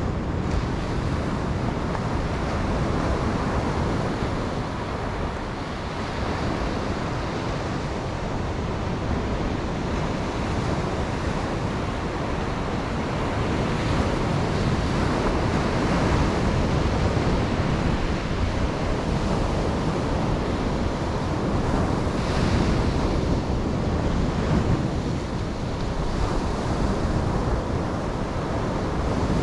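Ocean waves breaking and washing on a beach, a continuous surf noise that swells and eases, with wind rumbling on the microphone.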